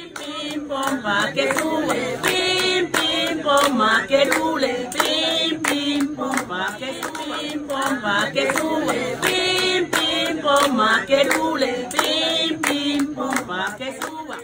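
Background music with group singing over a steady percussive beat.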